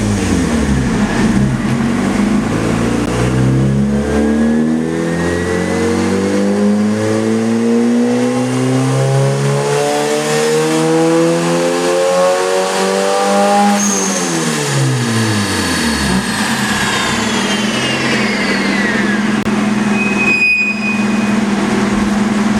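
Turbocharged Honda B18B1 four-cylinder engine making a full-throttle dyno pull. Its pitch climbs steadily for about twelve seconds, then drops sharply as the throttle is released. A high whistle falls away, and the engine settles back to idle.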